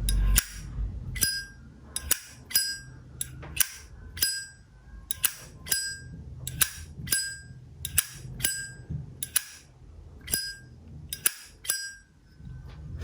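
Vintage Zippo lighter's hinged metal lid flipped open and snapped shut over and over, about two dozen sharp metallic clicks, each with a brief bright ring, often in quick pairs.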